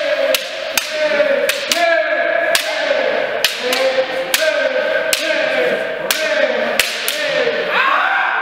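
Kendo practice: a rapid run of sharp clacks and slaps from bamboo shinai strikes, under repeated long kiai shouts, each held about a second and sliding down in pitch.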